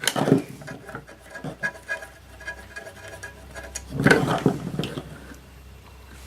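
A screw being turned out of the back of a metal control-panel case with a screwdriver: scraping and rubbing, with knocks and clinks as the panel is handled, loudest about four seconds in.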